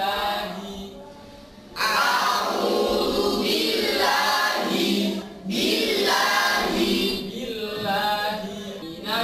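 A group of boys reciting the Quran aloud together in a chanted unison, in phrases. It starts quieter and grows loud after about two seconds, with a short break about midway.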